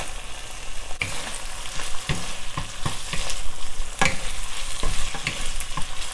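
Sliced beef, onions and dried chilies sizzling in a hot oiled non-stick wok as they are stir-fried with two wooden spatulas, which knock and scrape against the pan several times.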